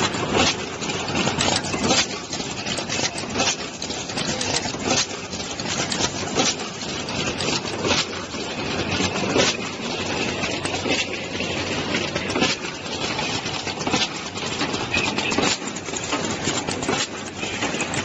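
Automatic wire seal-inserting and crimping machine running: a steady mechanical noise with frequent, irregular sharp clicks and clacks from its moving parts.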